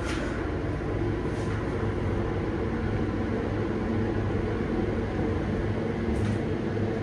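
Hydraulic elevator running, heard from inside the cab: a steady low hum and rumble that holds even throughout, with a faint tick or two.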